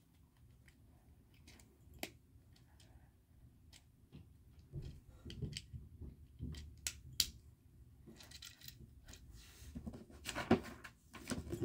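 Plastic LEGO pieces clicking and clacking as they are handled and pressed together, irregular sharp clicks throughout, with a papery rustle near the end as an instruction booklet page is turned.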